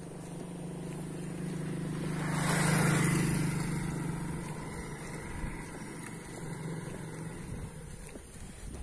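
A small motorcycle passes close by and rides away. Its engine hum and rush build to a peak about three seconds in, then fade slowly into the distance.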